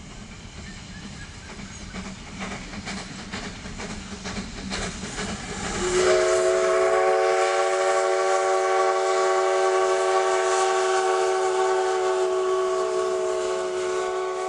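Train rolling along the rails with wheels clicking over the joints, then about six seconds in a diesel locomotive's air horn sounds a long chord of several notes at once, sliding up briefly at its start and then held steadily.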